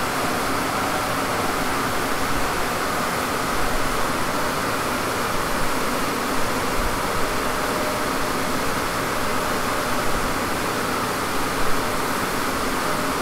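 Steady rushing noise of a SEAT Leon Cupra coasting down on a rolling-road dyno, in gear with the clutch engaged and off the throttle, as the rollers slow to measure drivetrain losses. Tyre and roller roar blends with a fan-like hiss, with a few brief louder moments.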